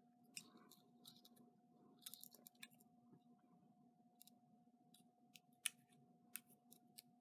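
Very quiet paper handling: faint scattered clicks and light rustles as fingers press a peel-and-stick paper die-cut onto a card, over a faint steady hum. The sharpest click comes about two-thirds of the way through.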